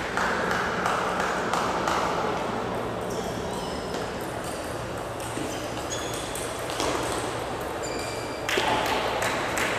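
Table tennis balls ticking against tables and bats, a scatter of short sharp clicks over the steady murmur of a large sports hall. A few short high squeaks come through the middle.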